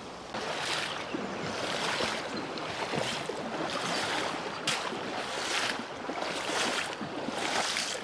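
A person wading through a shallow, rocky creek, the water splashing and swishing around the legs with each stride, about one step a second. There is a sharp knock about halfway through.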